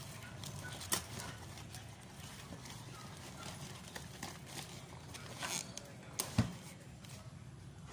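Scattered clicks and knocks of objects being handled, loudest about a second in and again past the six-second mark, over a low steady hum.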